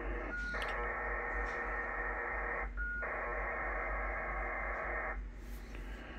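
Two bursts of an HFDL (high-frequency data link) aeronautical digital signal from the Yaesu FTdx10 receiver's speaker on 11387 kHz USB. Each burst is about two seconds of dense data hiss opening with a short steady tone, and after the second burst only band static is left.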